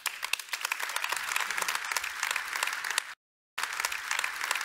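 Audience applauding: a dense, steady patter of clapping, cut by a short gap of silence about three seconds in.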